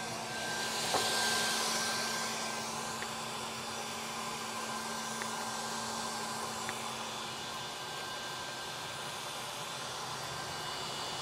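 Steady rush of air from the WeCreat Vision Pro laser engraver's exhaust and fume-extraction fans, with a louder gust about a second in. A low hum under it stops about two-thirds of the way through.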